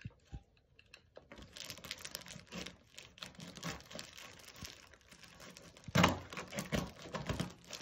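Black plastic wrap and packing tape crinkling and tearing as a box cutter slices a parcel open, in irregular crackles, with a louder burst of crackling about six seconds in.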